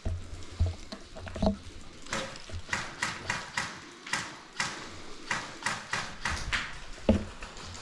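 Footsteps crunching on a gritty floor, about two to three steps a second, with a few low thumps from handling or bumps.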